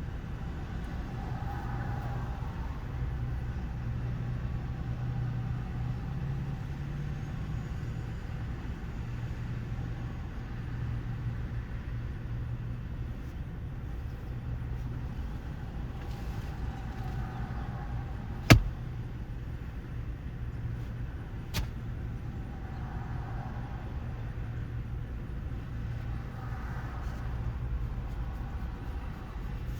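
Vehicle engine idling with a steady low hum, rising slightly in pitch for a moment about seven seconds in. One loud sharp click comes about eighteen seconds in, and a fainter one about three seconds later.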